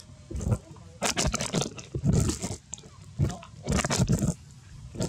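Irregular crunching and scuffing noises, a string of short bursts with brief gaps between them.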